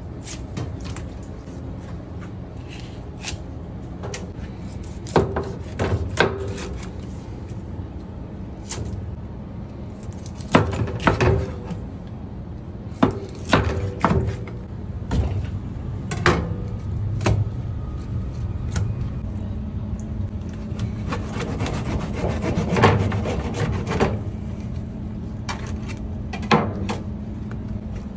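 A knife sawing crosswise through a king mackerel's flesh and backbone to cut steaks, heard as rasping strokes. Sharp knocks on a plastic cutting board come in irregular clusters every few seconds.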